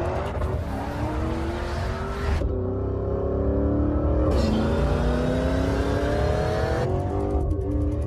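Sports car engine accelerating hard, its pitch climbing steadily and dropping back a few times, over a deep rumble.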